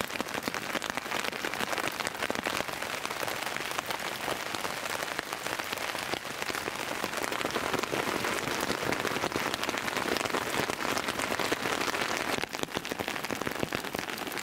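Steady rain pattering on a tent's fly: a dense, even crackle of countless small drop impacts.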